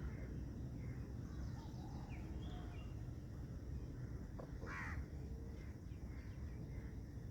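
Birds calling over a steady low background rumble, with a few short chirps early on and one louder call just before five seconds in.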